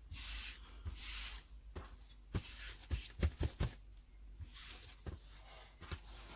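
Hands smoothing and pressing fabric flat on a cutting mat: a few swishing rubs of cloth, and a cluster of soft low thumps midway as the fabric is patted and handled.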